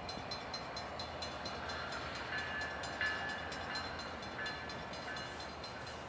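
Railroad sounds at night: a rapid, even clicking of about five strokes a second with a faint ringing edge, joined by intermittent high steady tones that are loudest about halfway through.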